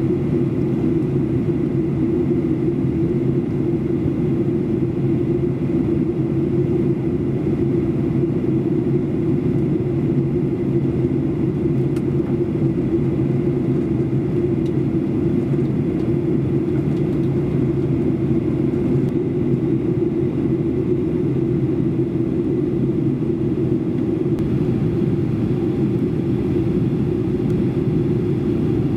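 Steady cabin noise inside a Boeing 737-800 on final approach: the CFM56 jet engines and the airflow make a constant low rumble, with a faint steady high tone above it.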